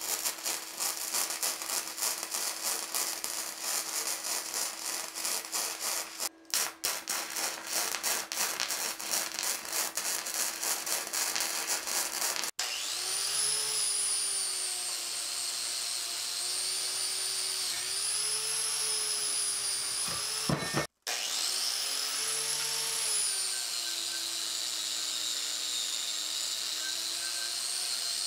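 Flux-core arc welding crackling and sizzling steadily, with a steady hum beneath, for the first twelve seconds or so. Then an angle grinder with a wire cup brush whines as it scrubs spatter off the weld beads, its pitch dipping and recovering each time it is pressed onto the steel.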